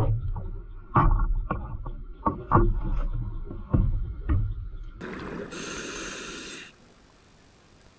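A scuba diver breathing through the regulator underwater. Exhaled bubbles rumble and pop for about five seconds, then a bright hiss of inhalation cuts off suddenly near the end.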